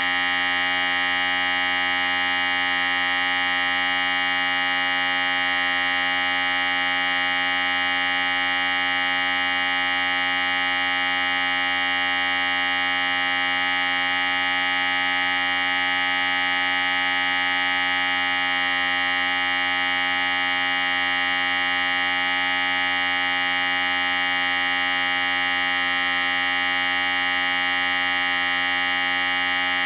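Electric hair clippers running steadily: an even, unchanging buzz.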